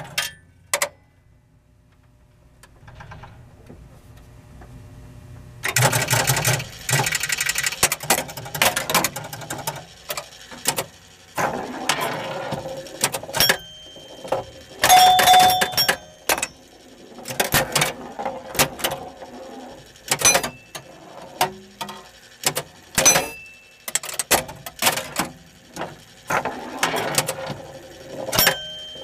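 Williams Fun Fest electromechanical pinball machine working after a coin drop. One click about a second in, then after a few quiet seconds dense runs of rapid relay and stepper clicks in bursts, with short bell-like rings now and then.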